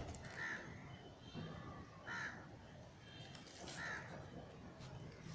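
Crow cawing three times, about a second and a half apart.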